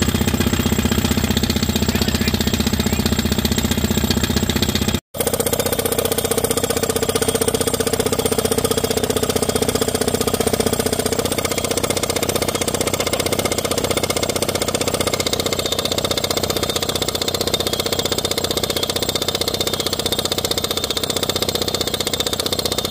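Bobcat-mounted drill rig hammer-drilling a pilot hole for a solar ground screw into rocky clay, a steady rapid hammering over the loader's running engine. The sound cuts out for an instant about five seconds in.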